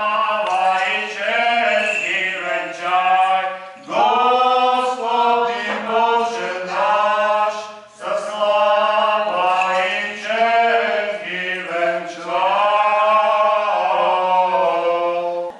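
Eastern Orthodox liturgical chanting by voices in a church service, sung in phrases of about four seconds with short breaks between them.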